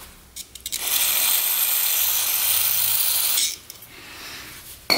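A steady spraying hiss lasting about three seconds as the engine's magneto breaker points are sprayed clean, with a few small clicks just before it and a sharp metallic clink near the end.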